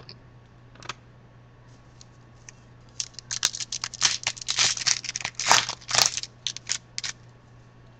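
A trading card pack's wrapper being torn open and crinkled by hand: a run of crackling rustles starting about three seconds in and lasting some four seconds.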